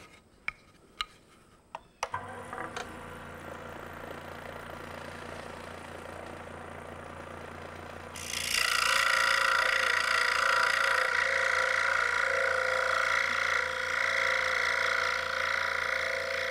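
A few light knocks, then a DeWalt scroll saw is switched on about two seconds in and runs with a steady hum. From about eight seconds in its blade cuts into a wooden board, much louder, with a steady high buzzing.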